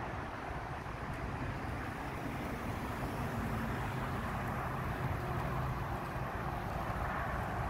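Storm wind blowing across the phone's microphone: a steady rushing noise with an uneven low rumble, getting slightly louder toward the end.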